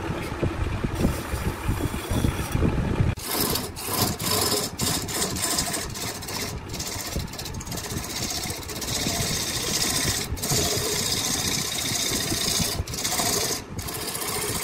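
Machinery running with a steady, noisy hum. The sound changes abruptly about three seconds in and breaks off briefly several times after that.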